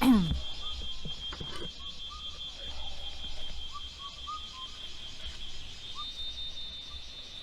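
Insects trilling in a steady high-pitched drone with a fast pulse, with short rising chirps breaking in now and then.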